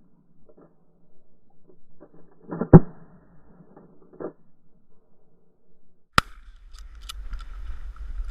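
Shotgun blasts, a close double report about two and a half seconds in and a smaller one near four seconds. After a sharp click, wind rumbles on the microphone.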